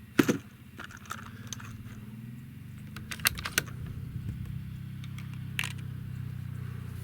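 A few sharp clicks and knocks of gear being handled, the loudest just after the start and a quick cluster around the middle, over the steady drone of a four-wheeler's engine that rises a little in pitch partway through.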